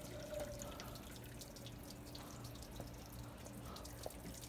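Faint dripping and trickling of water from a MerCruiser engine's one-point drain system, as the block and exhaust manifolds drain.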